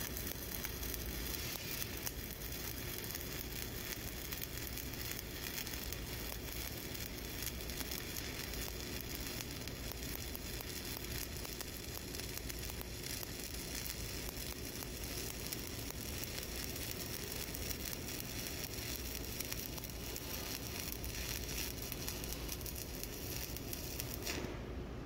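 Stick-welding (SMAW) arc on an E7018 electrode burning steadily as a cover pass is run along a horizontal groove weld. It stops shortly before the end.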